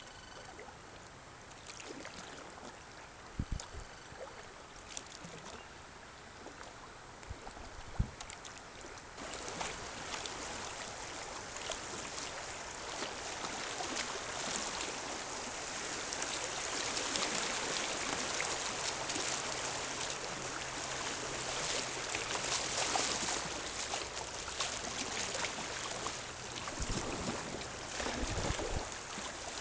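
River water rushing and splashing around a floating kayak. It grows louder about nine seconds in. A few sharp knocks come in the first eight seconds.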